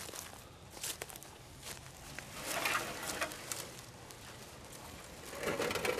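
Rustling and scraping of a rusted corrugated iron sheet being lifted off dry grass and leaf litter, among scattered light clicks and crackles of dry leaves; the densest scraping comes about two and a half to three and a half seconds in.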